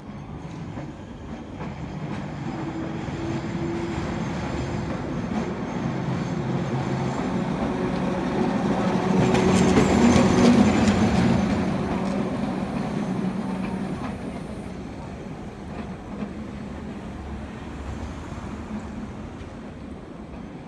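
Former Invercargill electric tram car running along street rails: it approaches with a steady low hum and rumble, is loudest as it passes close by about ten seconds in, with brief clicks of the wheels on the rails, then fades as it moves away.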